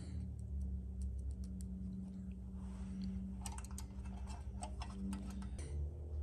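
Light, scattered metallic clicks and ticks from a hex key and a small M4 screw being handled and fitted against aluminum airframe parts, over a steady low hum that drops away near the end.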